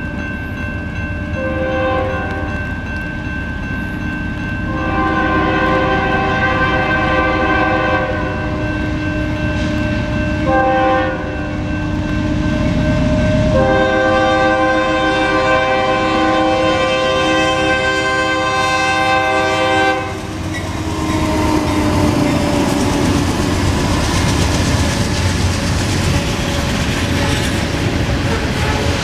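GE C44-9W diesel locomotives' Nathan K3LA air horn blowing several blasts as the train approaches the crossing: a short one, a long one, a short one, then a long one of about six seconds. The last blast cuts off about twenty seconds in, as the locomotives pass with a loud surge of engine and wheel noise, and then ballast hopper cars roll by on the rails.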